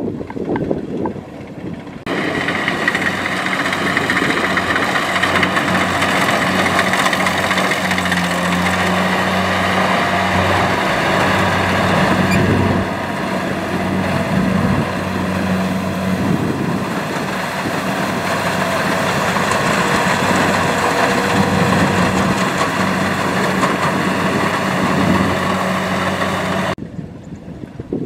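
Rice combine harvester's engine running steadily at working speed. It cuts in suddenly about two seconds in and cuts off near the end.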